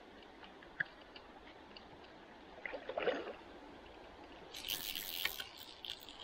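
River water trickling and gurgling faintly, with scattered small clicks, a brief louder patch about three seconds in, and a short rush of noise about five seconds in.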